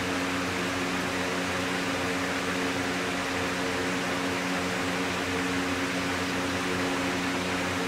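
An electric fan running, a steady whirring hum with no change.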